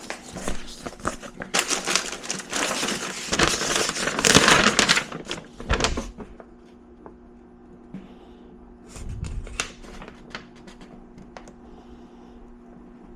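Paper crinkling and rustling as it is handled, loudest for about four seconds, then scattered small clicks and taps, over a faint steady hum.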